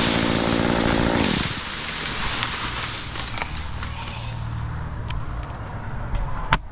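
Stihl chainsaw cutting at full throttle, then dropping off the throttle about a second and a half in and idling. Over the idle, a crackling rush of the white oak's branches coming down fades over a few seconds, and there is a single sharp knock near the end.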